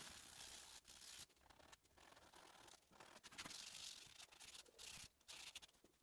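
Faint sandpaper rubbing on quarter-sawn oak in short, uneven strokes, with brief pauses between them.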